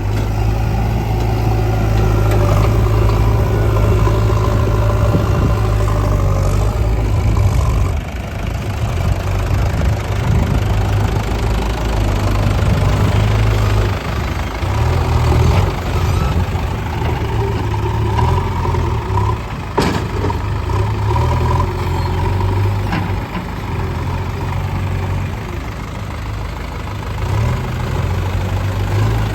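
A JCB 3DX backhoe loader's diesel engine runs steadily, its note and load shifting as it works. A sharp knock comes about two-thirds of the way through.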